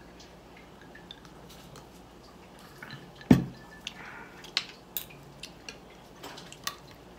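A fork and fingers clicking against a ceramic plate during eating, in scattered light ticks, with one louder knock a little over three seconds in.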